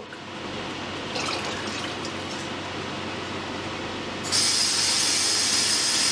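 A steady hiss, then a louder rush of running water that starts suddenly about four seconds in and cuts off about two seconds later.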